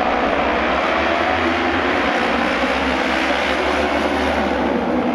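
A pack of auto race motorcycles with 600 cc twin-cylinder engines accelerating hard down the opening straight just after the start: loud, steady engine noise from the whole field together.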